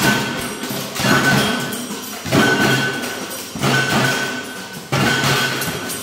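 Tin-can marching percussion band playing a cumbia beat: hard drum and wood-block-like strikes with a ringing metal note, the same pattern repeating a little over once a second.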